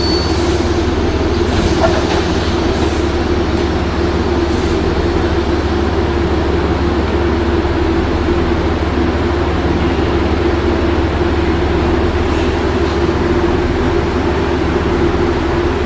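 Metro-North train standing at the station, its engine running in a steady drone with a constant hum.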